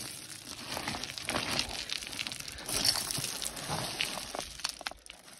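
Footsteps in sandals crunching over loose rock scree, with small stones shifting and clicking underfoot at an uneven pace.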